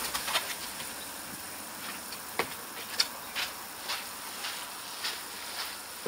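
Steady hiss of moving pond water, with a scattering of short, sharp clicks and light splashes at the surface.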